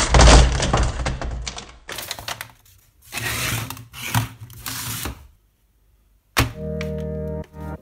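A heap of small compact digital cameras tipped out onto a wooden tabletop, clattering and knocking together for about two seconds, followed by sliding and rustling as they are handled and swept aside. After a short silence there is a click, and keyboard music starts near the end.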